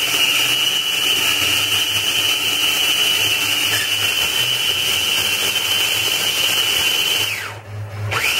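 Cuisinart Mini-Prep food processor motor running with a steady high whine as it purées a wet mix of cilantro, jalapeños, lime juice and oil. Near the end the motor winds down, stops for a moment, and starts up again.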